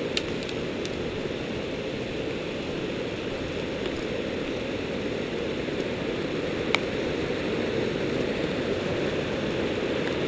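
Small forest creek rushing and splashing over rocks, a steady rush that grows a little louder in the second half. A single sharp snap about two-thirds of the way through.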